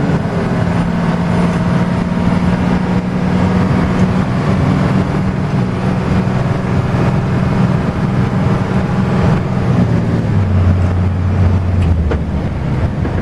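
Engine of a W5000 cab-over rollback truck running while driving, heard from inside the cab over road noise. The engine note drops lower about ten seconds in.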